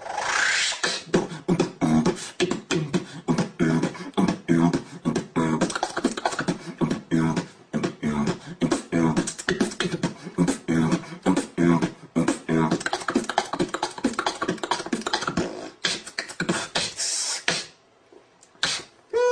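Beatboxing: a fast run of mouth-made kick, snare and hi-hat hits over a rhythmic hummed bass line. Near the end comes a long hiss, then a brief silence and one last hit.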